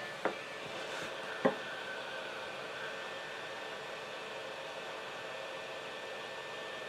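Hot air rework gun blowing a steady airy hiss with a faint steady whine, heating a surface-mount transistor on a circuit board to melt its solder for removal. Two light clicks within the first second and a half.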